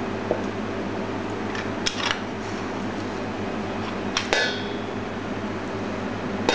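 A few sharp metallic clicks and knocks from a stainless-steel potato ricer being worked and tapped against a steel bowl. The loudest, about four seconds in, rings briefly. A steady low hum lies underneath.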